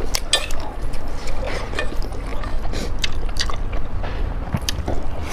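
Close-miked chewing of noodles and dumplings: wet mouth clicks and smacks at irregular intervals over a steady low rumble.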